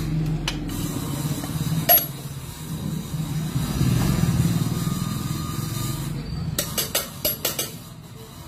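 A motor running steadily at a low pitch, with a sharp click or two near the start and a quick run of clicks about seven seconds in; it dies down near the end.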